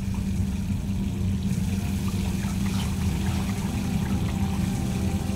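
Water running from a sink tap over hands, with a steady low hum beneath.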